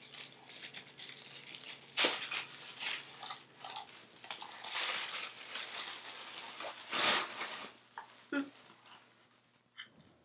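Pink tissue paper rustling and crinkling as a gift is unwrapped by hand, in irregular bursts, the loudest about two seconds in and again about seven seconds in.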